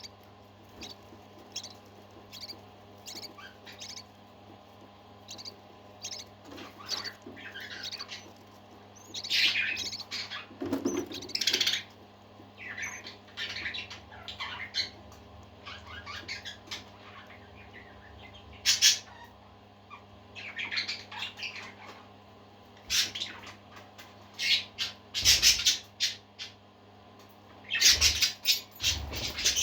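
Parakeets chirping and squawking in short, irregular bursts of calls, busiest about ten seconds in and again near the end, over a faint steady hum.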